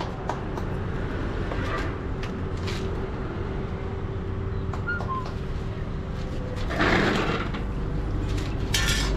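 Steady workshop machine hum, with a short scraping or grinding burst about seven seconds in and a brief hiss near the end.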